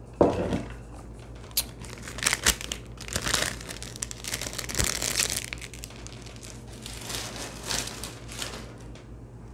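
An ice cream bar wrapper crinkled and crumpled by hand in a run of crackling bursts, after a brief knock right at the start.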